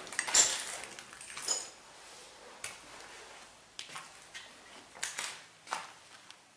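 Footsteps crunching and clinking over broken glass and rubble on a tiled floor, in a small room. The loudest crunch comes about half a second in and another near one and a half seconds, then fainter, scattered steps follow.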